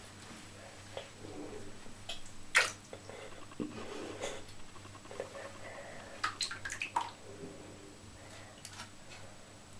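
Bathtub water splashing and dripping as a cat moves about in it: scattered small splashes, the loudest about two and a half seconds in and a quick cluster around seven seconds.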